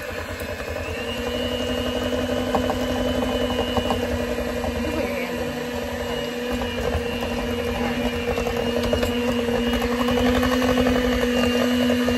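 Electric hand mixer running steadily, its beaters churning peanut butter cookie dough in a stainless steel bowl as flour is added and the dough thickens. The motor gives a constant hum.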